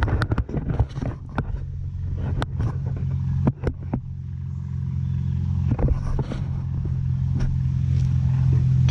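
A steady low drone runs throughout, with scattered sharp metallic clicks and knocks from a lug wrench and jack being handled during a tire change.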